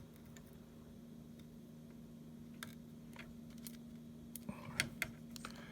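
Faint, scattered light clicks and taps of small handling on the TV circuit board and bench, a handful of them in the second half, over a steady low electrical hum.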